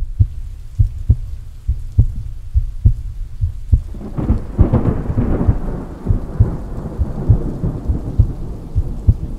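Rain with heavy drops knocking at uneven intervals, and a roll of thunder that swells about four seconds in and slowly dies away.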